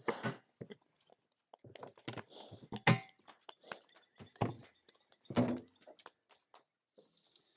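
Pigs at their feed, making irregular knocks and thunks. The loudest is a sharp clank with a brief ringing tone about three seconds in, and two heavier thumps follow.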